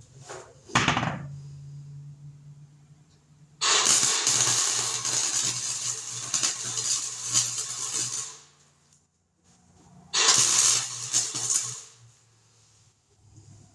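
Welding arc crackling on sheet-metal patch panels in two runs: a long bead of about five seconds, then a shorter one of about two seconds, over a steady low hum.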